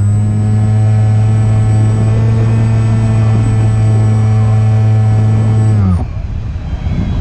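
Electric motor and propeller of an E-flite Opterra flying wing running at steady high throttle with a strong, even whine. About six seconds in the throttle is cut and the pitch drops sharply away.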